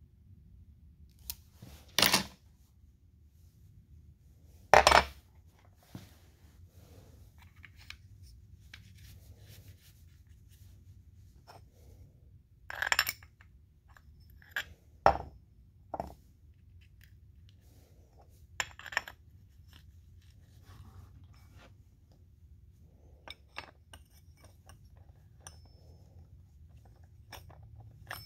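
Metal clutch parts of a Husqvarna 350 chainsaw being handled and fitted back on by hand: scattered sharp metallic clinks and knocks, several seconds apart, the loudest about five seconds in, with small clicks and rattles between.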